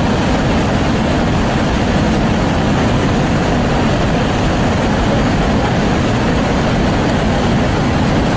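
Fast-flowing floodwater rushing past, a loud, steady, unbroken noise that is heaviest at the low end.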